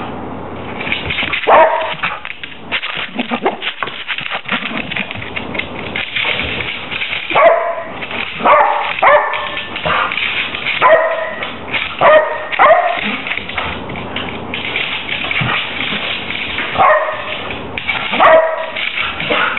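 Border collie giving short, high barks and yips in several clusters, excited while chasing a laser pointer dot, with its claws clicking and scrabbling on a hardwood floor between barks.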